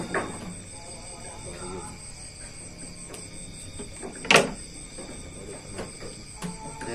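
Crickets chirping steadily in the night background, with one sharp knock a little over four seconds in, the loudest sound in the stretch.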